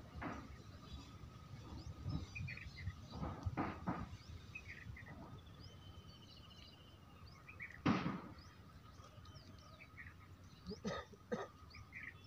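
Outdoor ambience: small birds chirping now and then over a faint steady tone, with a few short louder noises, the loudest about eight seconds in.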